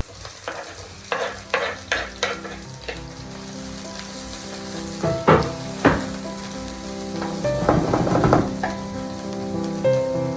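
Food sizzling in a frying pan as it is stirred, with a few sharp knocks and scrapes of the utensil against the pan.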